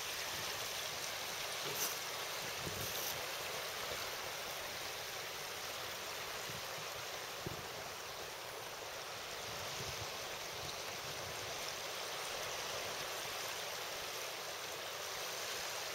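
Steady, even outdoor hiss with a couple of faint small knocks, about two and seven and a half seconds in.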